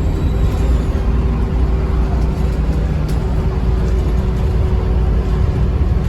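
Diesel bus engine and ZF automatic gearbox running steadily under way: a loud, even low drone with a steady mid-pitched tone over it.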